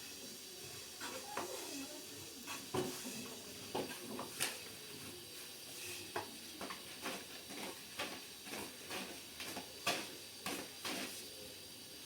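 Irregular light clinks and knocks of cookware and utensils being handled, about one or two a second, over a steady hiss.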